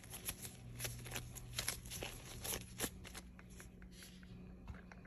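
Disposable plastic gloves rustling and crinkling as hands pinch and twist dough closed around a meat filling to shape a steamed dumpling. The crisp little rustles come thick and fast for about three seconds, then thin out to scattered clicks.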